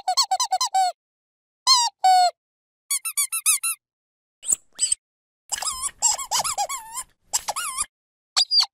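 Dog squeaky toy squeezed over and over: short squeaks that rise and fall in pitch, in quick runs with pauses between them, and a faster, denser flurry of squeaks after about five seconds.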